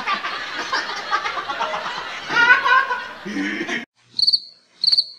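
Teenage boys laughing and snickering, the loudest burst about two and a half seconds in. About four seconds in the laughter cuts off suddenly and a cricket chirps twice, about half a second apart, in the silence.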